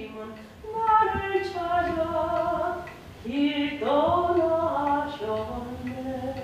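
An elderly woman singing slowly, unaccompanied, in two phrases of long held notes that glide gently between pitches.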